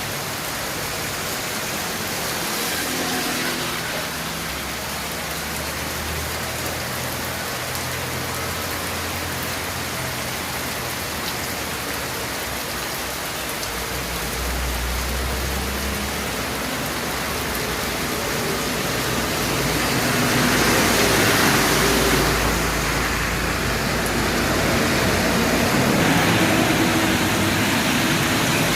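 Heavy rain falling steadily. A low rumble rises under it about halfway through and again, louder, around two-thirds of the way in.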